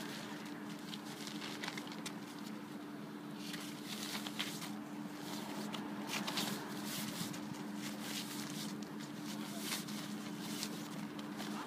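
Rustling and crinkling of a thin waterproof drybag and a fleece garment being stuffed into it: a run of short rustles, busiest in the middle. A steady low hum runs underneath.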